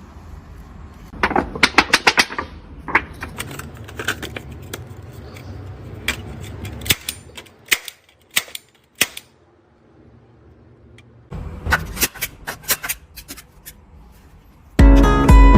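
Handheld manual nail gun firing repeatedly: sharp clicks, with a quick burst about a second in, single shots spread out after it, and another quick burst near the end.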